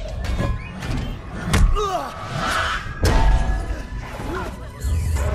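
Film fight sound effects: heavy blows and metal slams, with loud impacts about a second and a half in and again at about three seconds, over the film score.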